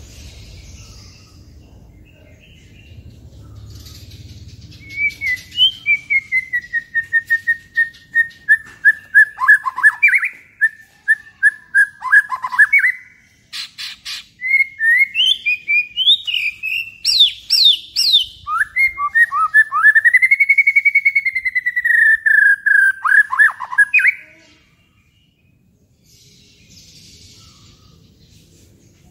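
White-rumped shama (murai batu) singing loudly. About five seconds in it starts a fast run of repeated chirped notes at one pitch. After a short break come higher, rising notes and a long arched whistle, and the song stops abruptly a few seconds before the end.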